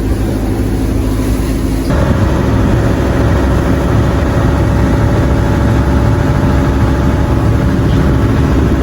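Dive boat's engine running with a steady low drone, growing louder and fuller about two seconds in.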